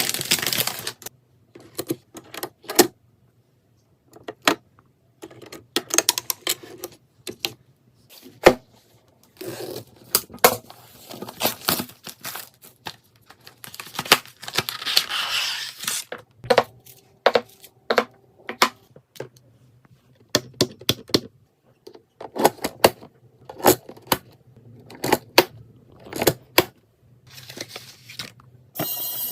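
Computer parts and their packaging being handled: a run of sharp clicks, taps and plastic knocks, with rustling and tearing of wrapping, broken up by short gaps of silence.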